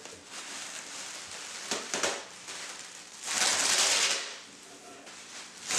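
Bubble wrap and plastic packaging rustling and crinkling as it is handled and pulled about inside a cardboard shipping box, with scattered crackles and one louder stretch of crinkling about three seconds in.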